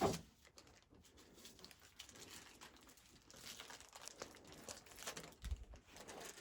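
Faint crinkling and tearing of packaging being handled and opened, with a soft low thump near the end.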